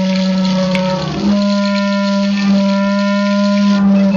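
A steady droning tone, low and held, with a stack of overtones like a wind instrument. Just after a second in it wavers briefly, then settles at a slightly higher pitch.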